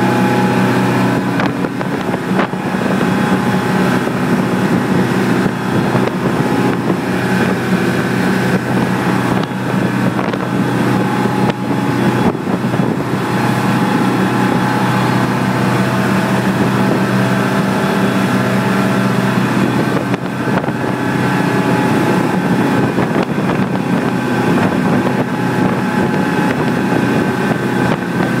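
Fishing boat's engine running steadily at cruising speed, with the rush of the churning wake water and wind buffeting the microphone.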